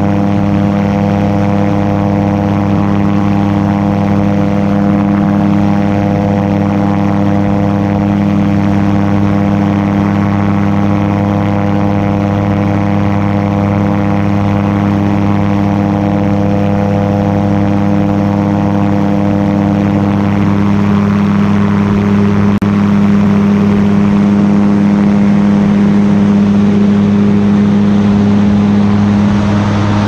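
Camera drone's motors and propellers hovering with a loud, steady hum of several tones; about 20 seconds in the higher tones shift in pitch as the drone changes its flight.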